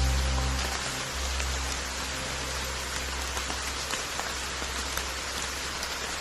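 Steady rain falling, an even hiss with scattered drop ticks. Low, soft music tones fade out during the first few seconds.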